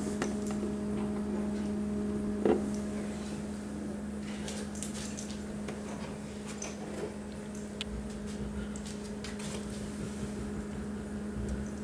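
New side-by-side refrigerator running with a steady hum, its compressor on as it cools down; a single knock about two and a half seconds in and a few faint clicks.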